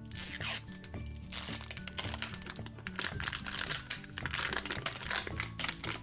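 Plastic packaging wrapper crinkling and tearing in repeated bursts as a toy's blind-bag wrapping is pulled open by hand, over background music.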